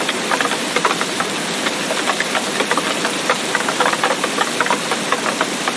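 Steady tropical rainforest rain: an even hiss with many close, irregular drop taps on top.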